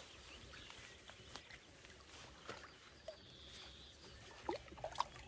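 Faint splashes and drips of water in the shallows as a carp is released from a wet sling, with small clicks of handling and a faint bird call twice.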